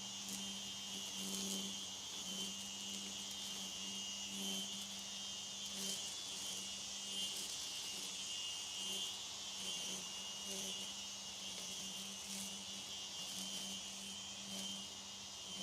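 String trimmer (weed whacker) running as it cuts long grass: a steady high whine over a low hum that swells and fades every second or so.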